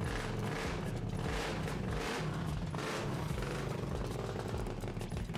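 Kawasaki Brute Force 750 V-twin ATV engine, bored out to 840cc, running with a deep grumble and revved in several swells about a second apart.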